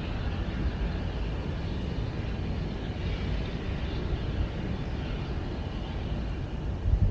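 Steady low outdoor rumble with a faint hiss over it. Louder, irregular low buffeting starts right at the end.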